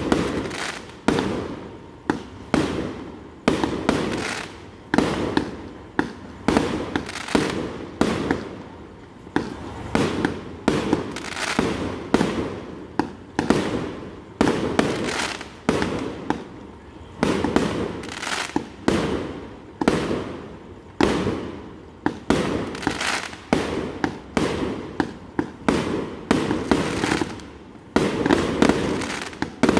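Aerial fireworks going off overhead in a steady run of sharp bangs, roughly one a second, each fading away before the next.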